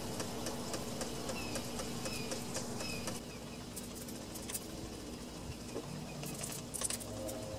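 Quiet outdoor ambience with a low steady hum, a few faint bird chirps, and scattered light clicks and taps as a bottle of rust-treatment gel is worked onto a garden tractor's metal frame.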